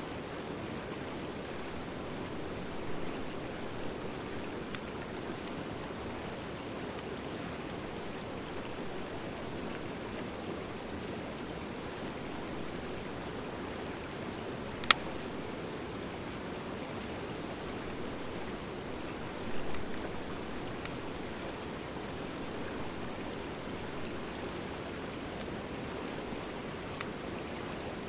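Driftwood and hardwood fire burning over a steady rushing noise, with scattered small crackles, a few louder pops and one sharp, loud crack about fifteen seconds in.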